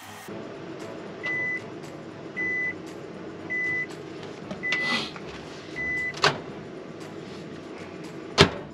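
Microwave oven beeper sounding five short high beeps, about one a second, over a steady low hum. Two sharp clacks follow, the second one loud, near the end.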